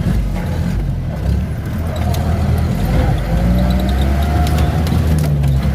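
Jeep engine running as it drives uphill, a heavy steady low rumble with a few short knocks and rattles over it.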